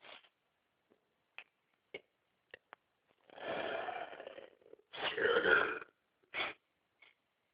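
A person burping twice: a longer burp about three seconds in, then a louder one about five seconds in.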